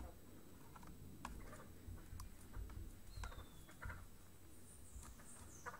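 Faint chirps and short whistled calls of small birds, a few of them gliding down in pitch, with a few light clicks scattered between them.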